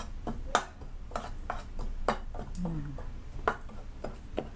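Kitchen utensils tapping and clinking against dishes while a dipping sauce is being made: about eight sharp, irregularly spaced knocks.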